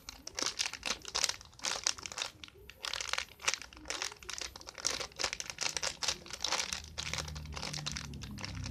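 Irregular crinkling and rustling from a squishy toy being handled and squeezed.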